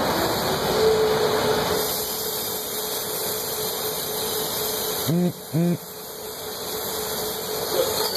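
Glassblowing lathe running with a steady mechanical hum, under the hiss of a lit hand torch. A little past halfway come two short low tones, about half a second apart.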